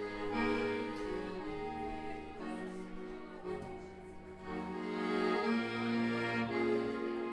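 Live band music led by a Gabbanelli accordion playing held chords, with a bass line stepping underneath.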